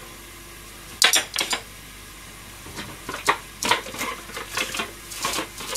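Kitchen clatter as a small metal dish is handled and set down on a gas stovetop: a sharp clatter of a few knocks about a second in, then a run of lighter clinks and knocks in the second half.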